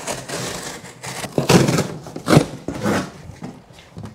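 A long cardboard box being cut open and its flaps pulled apart: scraping and tearing cardboard, with two louder rips about a second and a half and two and a half seconds in.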